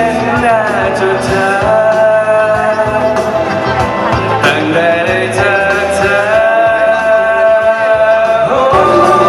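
A male singer sings live with band accompaniment at a sound check, holding two long steady notes, one starting about a second and a half in and the other about halfway through.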